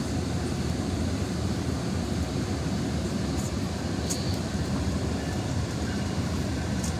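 Metrolink commuter train rolling slowly, heard from inside the passenger car: a steady low rumble of wheels and running gear, with a few brief high-pitched ticks.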